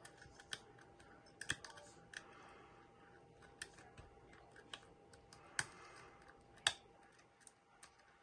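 Lock pick and tension wrench working inside a Mul-T-Lock Junior lock: faint, scattered small clicks and ticks at irregular intervals, with a few louder clicks about one and a half, five and a half and six and a half seconds in.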